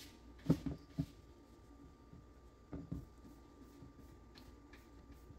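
A few soft knocks and rustles of hands pressing raw chicken pieces into a dry flour coating, clustered about half a second to a second in and again near three seconds, over a faint steady thin hum.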